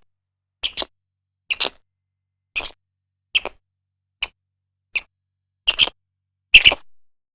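A series of about eight sharp, dry clicks, many of them doubled, spaced a little under a second apart with silence between.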